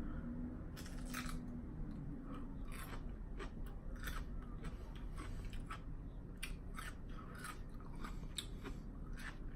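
Close-up chewing and crunching of a lettuce wrap filled with ground chicken and vegetables: irregular crisp crackles, several a second, as the lettuce is bitten and chewed.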